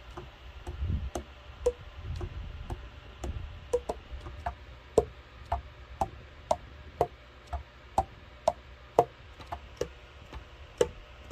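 Yamaha YAS-62 alto saxophone keys being tapped shut one after another, each pad closing on its tone hole with a short hollow 'tong' pop, about two a second. The pitch of the pops shifts as different keys are pressed. The clean pops are the sign of freshly fitted pads sealing well.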